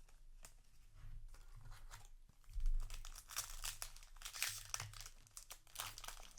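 Handling of a foil Yu-Gi-Oh! booster pack: light rustling at first, a soft knock about two and a half seconds in, then dense crinkling and tearing as the wrapper is worked open.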